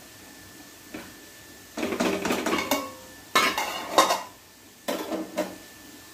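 Clatter and knocks of small hard objects being handled: one tap, then several short clusters of clinking knocks.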